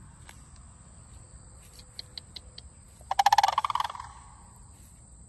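A crane giving one loud, rolling, rattling call about three seconds in, lasting about a second.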